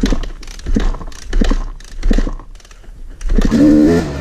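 A few short knocks and rattles about every 0.7 seconds. About three seconds in they give way to a Yamaha YZ250X single-cylinder two-stroke dirt bike engine revving up and down under riding load.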